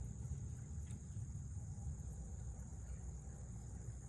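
Insects chirring steadily, a high pulsing buzz that carries on without a break, over a low rumble.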